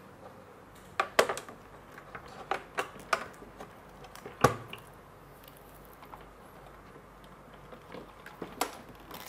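Hard clicks and knocks of a smart door lock's front panel being handled and pushed into place against the door, scattered through, the loudest about four and a half seconds in, with a few more near the end.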